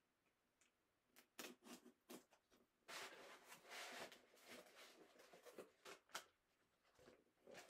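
Faint handling of a product box being opened: a few light knocks, then a few seconds of scraping and rustling packaging, with a sharp click near the end.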